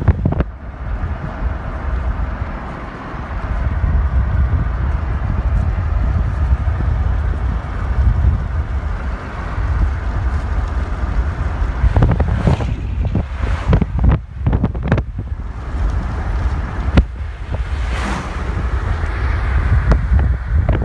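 Wind buffeting the microphone over a steady rushing noise, with a few sharp knocks and clicks in the second half.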